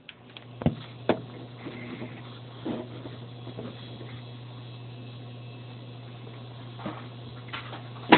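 Handling knocks and bumps as a phone camera and an acoustic guitar are moved into place, a few sharp ones about a second in and near the end, over a steady low hum.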